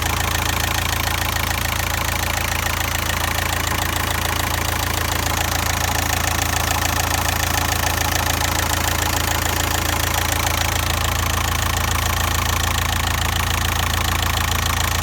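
TDI turbodiesel engine idling steadily with a fast, even diesel clatter. The owner has traced a vacuum leak on this engine to the PCV valve built into the rocker cover.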